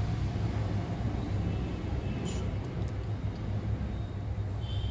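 Steady low background hum, with a few faint light ticks about halfway.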